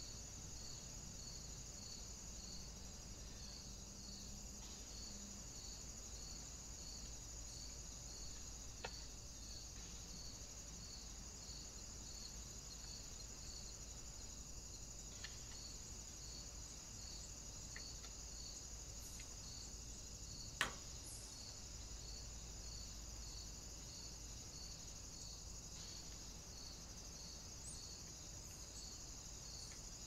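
Faint insect chorus of crickets or cicadas: a steady high shrill with a regular chirp pulsing about one and a half times a second. A few faint clicks break in, the sharpest about two-thirds of the way through.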